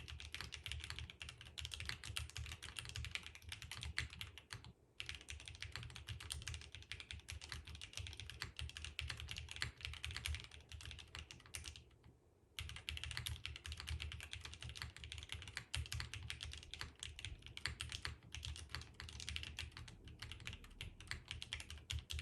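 Fast typing on an F1-8X v2 gasket-mount mechanical keyboard with an aluminium plate and lubed, filmed Prevail Epsilon switches. It is a dense stream of keystrokes with two brief pauses, one about five seconds in and a slightly longer one just past the middle.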